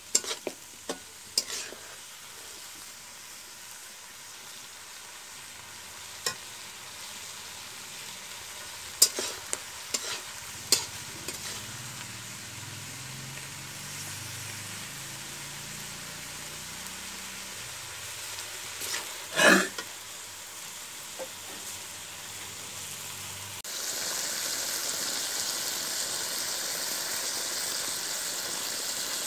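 Pork curry frying and sizzling in a metal wok while a metal spatula stirs and scrapes it, with sharp clinks of the spatula against the pan now and then and one louder knock past the middle. The sizzle grows clearly louder a few seconds before the end.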